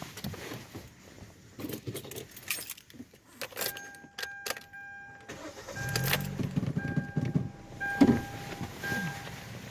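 Keys jangling in the ignition, then a two-tone dashboard warning chime, and a 2013 Hyundai Elantra's engine cranking and starting about six seconds in. The chime keeps beeping in short repeats as the engine settles to idle.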